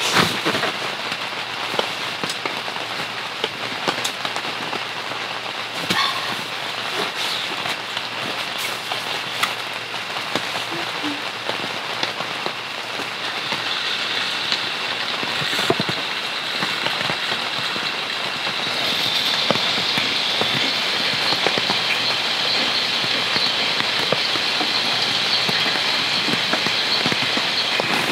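Steady rain falling on a camping shelter, an even patter with scattered sharper drips. A brighter, higher hiss builds from about halfway and is loudest in the last third.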